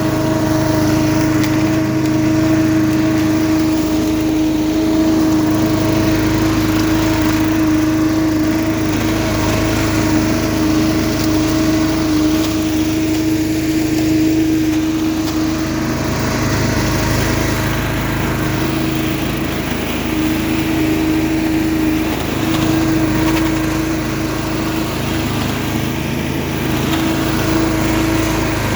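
Billy Goat LB50Q walk-behind leaf vacuum running steadily, its small engine humming under a strong steady whine that drops out for a few seconds around the middle and then returns.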